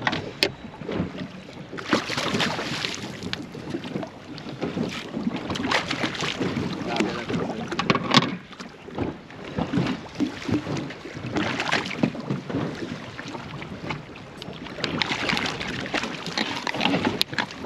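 Wind buffeting the microphone over water splashing and slapping against the side of an inflatable boat, with irregular splashes from a hooked horse-eye jack thrashing at the surface right beside the boat.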